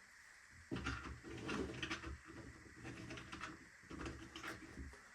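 3D-printed plastic parts being handled and pressed together, with rubbing and several small clicks as a locking tab is fitted into place.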